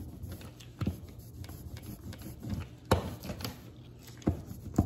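Hand brayer rolling back and forth over an inked paper stencil, a continuous sticky rolling noise from the tacky ink, broken by about five sharp taps.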